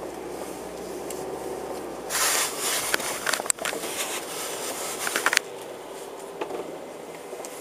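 Road traffic: a vehicle passes close by, a rush of tyre and wind noise lasting about three seconds, with a few sharp clicks, over a steady low background hum.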